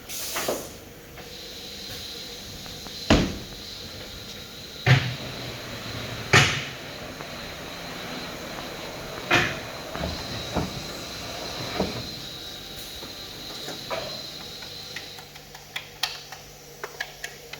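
Multicam SR3618vi CNC router's auto-unload scraper arm at work: a steady high whine with a series of loud clunks and knocks spaced a second or more apart, then a run of quick clicks near the end.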